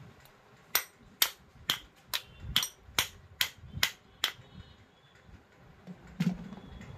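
Nine sharp metallic taps, about two a second, then a single tap a couple of seconds later, as metal parts of an electric hand cutter are fitted back together.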